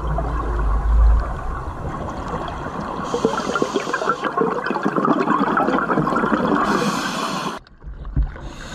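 Scuba diver's exhaled bubbles streaming from the regulator, heard underwater as a dense crackling gurgle that cuts off a little before the end.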